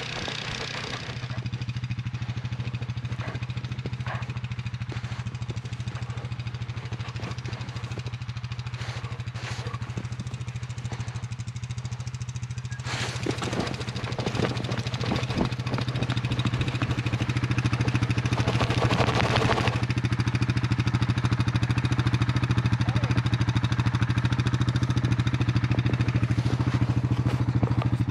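Yamaha Grizzly 700 ATV's single-cylinder engine running at a steady pitch. There are brief rattling bursts about halfway through and again a few seconds later, and it gets a little louder after the first one.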